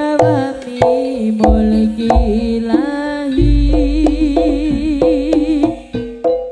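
Jaranan gamelan music: struck metallophones ringing in a quick pattern with drum strokes, a wavering melody line with vibrato over the middle, and a sustained deep low tone in the second half.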